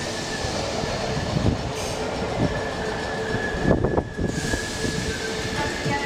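A train running on the rails: a steady rumble and rush with a held high-pitched whine over it and a few low knocks.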